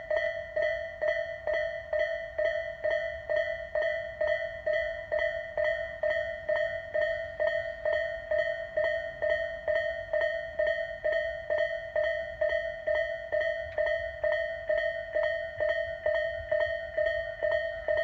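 Japanese railway level-crossing warning bell ringing: an electronic two-pitch ding repeating steadily and rapidly while the barriers are down, signalling a train is approaching.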